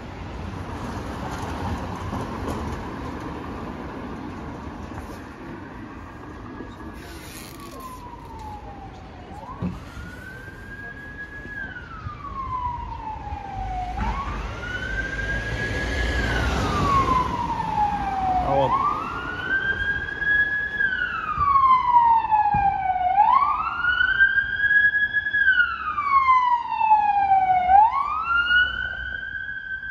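Emergency vehicle siren wailing in slow rises and falls of pitch, one cycle about every four to five seconds, starting about a third of the way in and growing louder toward the end. Street traffic underneath, with a vehicle passing by about halfway through.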